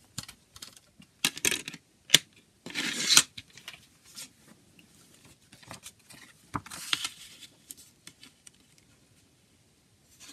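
Paper CD booklet being pulled out and unfolded by hand: a series of short rustles and slides, with a sharp click a little over two seconds in and the loudest rustle at about three seconds.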